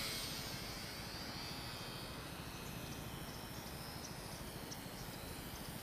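Thin, faint high whine of a distant micro RC airplane's small electric motor and propeller, over steady outdoor ambience.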